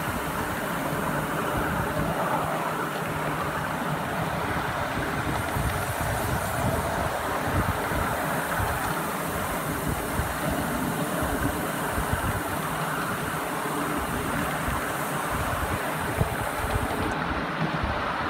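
Steady running noise of a 7¼-inch gauge miniature steam train hauled by a model Britannia locomotive, heard from a passenger car: wheels rolling on the track, with the locomotive working ahead.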